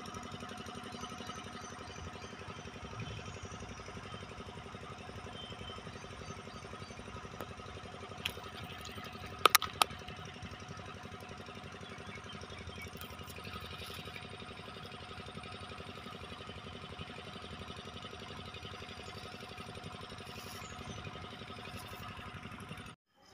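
A small motor running with a steady hum, with a few sharp clicks about eight to ten seconds in.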